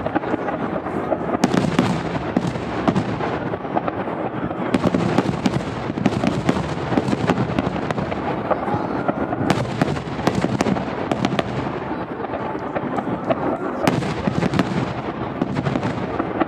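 Fireworks going off in a dense, continuous barrage: many sharp bangs and crackles in quick succession over a steady rumble.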